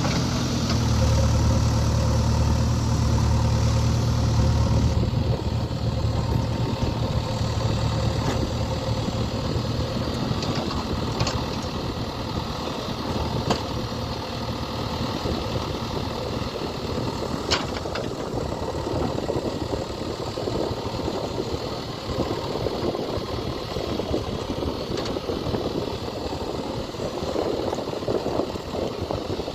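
JCB 3DX backhoe loader's diesel engine running, with a strong steady low hum that eases about five seconds in. A few sharp knocks come through later on.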